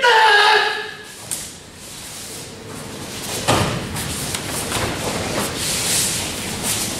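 A group shout falls away in the first second. Then a run of thuds and swishes from a group of karateka moving through a kata on mats: bare feet stepping and stamping and cotton uniforms snapping, with the sharpest thud about three and a half seconds in.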